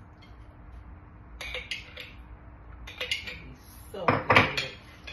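Cutlery clinking and scraping against dishes: a few short clinks, then a busier, louder clatter about four seconds in.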